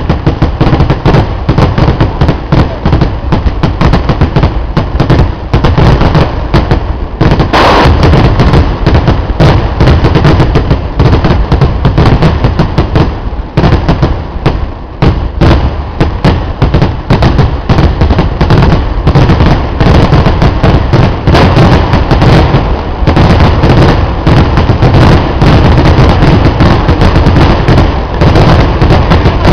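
Kerala temple-festival fireworks: a dense, unbroken barrage of loud firecracker blasts, one on top of the next with no pauses, deep and booming at the low end.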